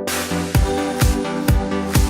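Electronic background music over a synth line, with a steady kick-drum beat of about two beats a second coming in about half a second in.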